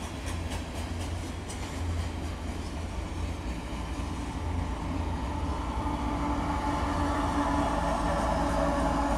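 Double-stack intermodal well cars rolling past with steady wheel-on-rail rumble and a few clicks at rail joints. From about six seconds in, the steady drone of a Canadian Pacific diesel locomotive's engine comes in and gets louder as the unit draws level.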